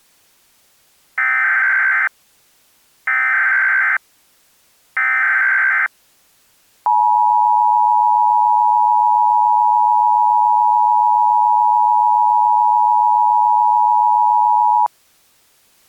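Emergency Alert System header: three short bursts of warbling SAME digital data, then the EAS attention signal, a steady two-tone beep (853 and 960 Hz) held for about eight seconds. It marks the start of an emergency alert broadcast, here a mock civil danger warning.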